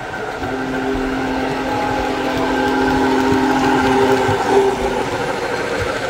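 The sound system of an MTH Premier PS3 model of Union Pacific Big Boy 4014 blows a long chime steam whistle of about four seconds, over the running noise of the O-gauge train on the track. The whistle is the loudest thing here.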